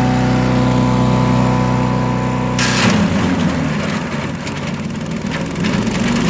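Predator gas chipper/shredder running steadily, then a green branch goes in: a burst of chipping noise about two and a half seconds in, and the engine bogs down hard, its note dropping and running rough for about three seconds before it picks back up near the end. The branch was not held back and nearly stalled the machine.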